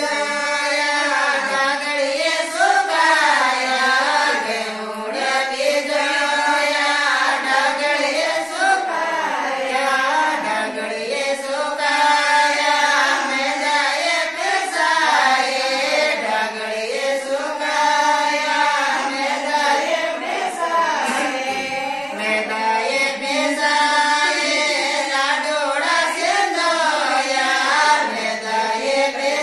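Women singing a desi wedding folk song (samdhi-samdhan geet) together, one melody in unison, without instruments.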